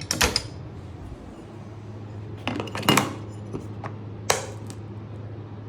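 A few sharp metallic clicks and knocks, a cluster about halfway through and single ones after, as the night lock's metal bar is handled against its bracket on the door. A steady low hum runs beneath.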